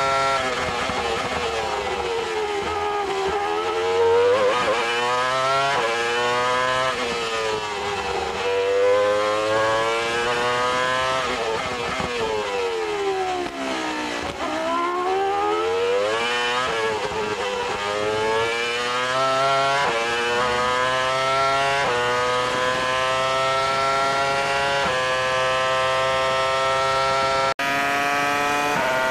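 Onboard sound of a 2000 Benetton Formula One car's V10 engine at racing speed: the pitch climbs through the gears with quick stepped upshifts, and several times sweeps down through a run of downshifts under braking before rising again. Near the end it cuts to another Benetton V10 held at high revs at a standstill.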